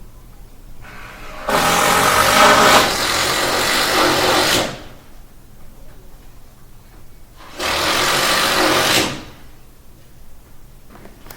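Electric power tool running in two bursts, the first about three seconds long, the second about a second and a half. Each burst is a harsh, noisy sound with a steady motor whine under it.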